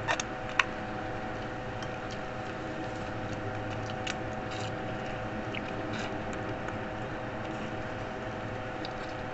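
Eating sounds: scattered light clicks and taps of forks on plates and of chewing chicken feet and spaghetti, the sharpest about half a second in, over a steady background hum.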